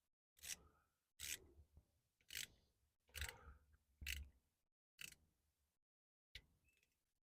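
Ratchet wrench clicking in seven short strokes, about one a second, as the differential drain plug is tightened.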